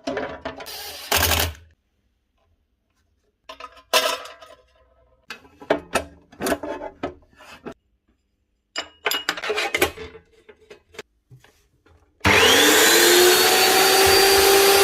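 Scattered clicks and knocks in three bunches, then about twelve seconds in an electric cutoff saw's motor starts: a whine rises quickly in pitch as the blade spins up, then runs steadily.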